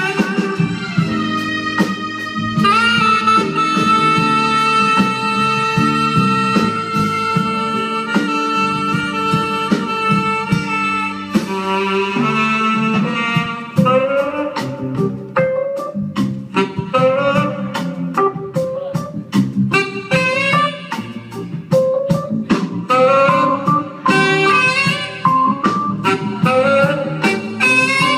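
Live jazz band led by a tenor saxophone: the sax holds one long note, then plays a quick run and a series of short, repeated phrases over drums and accompaniment.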